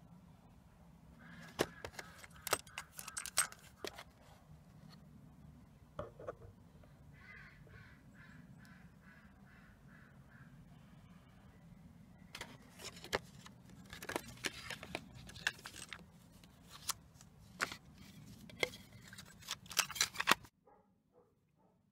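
Clicks, taps and clatters of a plastic cassette tape and its clear plastic case being handled, with rustling of the folded paper insert, in scattered bunches that grow busier in the second half, over a low steady hum. The sound cuts off sharply near the end.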